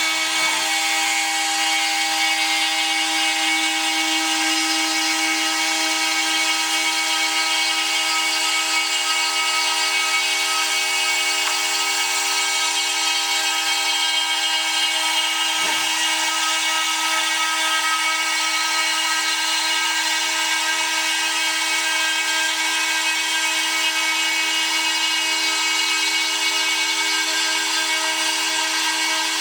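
CNC router spindle milling 2 mm aluminium sheet: a steady whine of several tones at constant pitch, with a brief knock twice, once just after the start and again about halfway.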